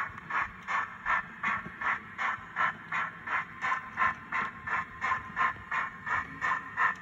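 Model steam locomotive's chuff sound running steadily, about three even chuffs a second.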